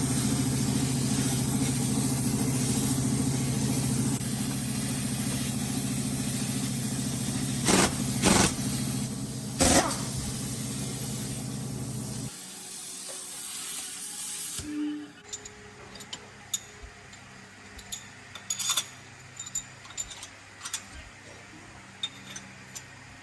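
An engine running with a loud hiss over it; the engine cuts off about twelve seconds in and the hiss stops a couple of seconds later. Scattered light clicks and taps follow.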